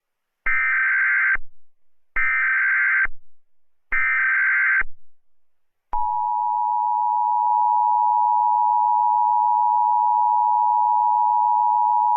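Emergency Alert System tones: three data bursts of the SAME header, each about a second long, then from about six seconds in the steady two-tone EAS attention signal. Together they mark the start of an emergency alert broadcast.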